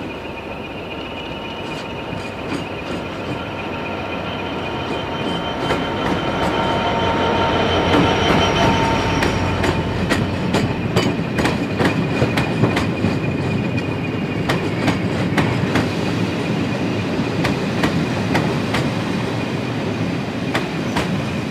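Freightliner Class 66 diesel locomotive, with its EMD two-stroke engine, approaching and passing close by, growing louder to a peak about eight seconds in. A rake of coaches then rolls past with a run of wheel clicks over the rail joints.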